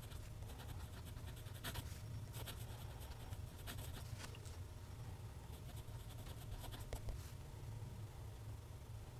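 Steel nib of a TWSBI ECO fountain pen scratching faintly across Clairefontaine paper in short cursive strokes, with gaps where the pen lifts between words. The strokes thin out near the end. A steady low hum runs underneath.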